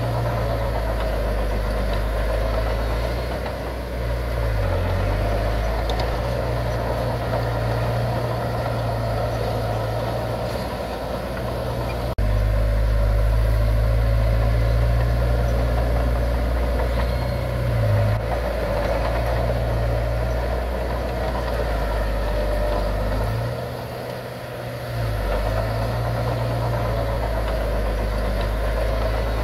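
Heavy diesel earthmoving machinery running, a steady deep engine rumble. It changes abruptly about twelve seconds in and dips briefly near the end.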